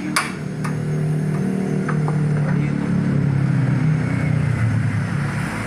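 A vehicle engine running, its pitch rising a little and swelling through the middle before easing off, with a couple of sharp metal clicks in the first two seconds.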